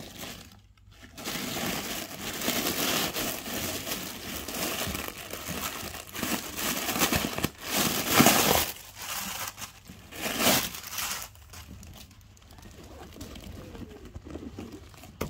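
Crumpled packing paper stuffed inside a new tote bag crinkling and rustling as hands move it around, loudest about 8 and 10 seconds in, then softer rustling near the end.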